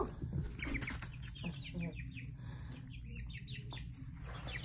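Young chicks, about five weeks old, peeping: quick clusters of short, high chirps that fall in pitch.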